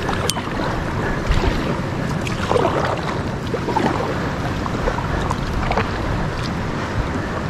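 Steady rush of whitewater in a rocky river rapid, with a few short sharp sounds over it.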